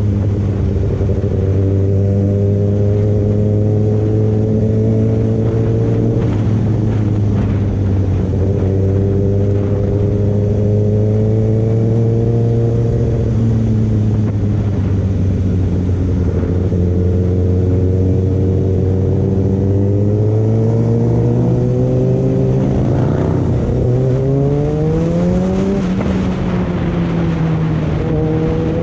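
Kawasaki ZX-6R's inline-four engine running at steady low revs on the move, the pitch climbing over several seconds near the end and then dropping back.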